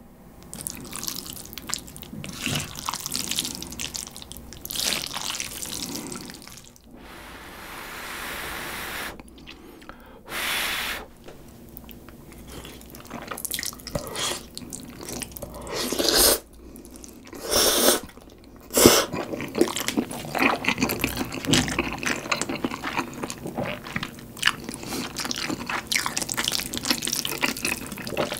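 Close-miked slurping and chewing of sauce-coated Carbo Buldak stir-fried instant noodles: wet mouth smacks and small clicks throughout, with several louder slurps through the middle.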